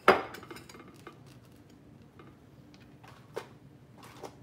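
Kitchen handling sounds on a countertop: one sharp knock right at the start, a few faint clicks after it, then two more light taps, about three and four seconds in.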